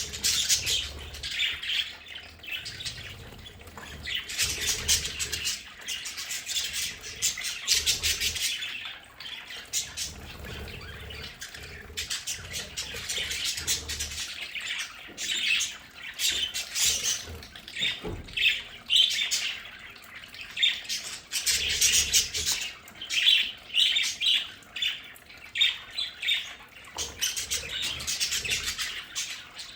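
A flock of budgerigars chattering continuously, with many overlapping warbles, chirps and squawks.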